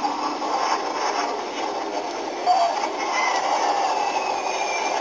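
Soundtrack of a 1970s kung fu film trailer between narrator lines: a dense, noisy mix with wavering pitched sounds and a few short glides.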